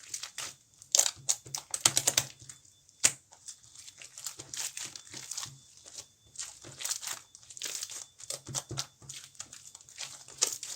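Slime being squished and kneaded by hand: a run of irregular crackling clicks and pops, with one sharp, louder pop about three seconds in.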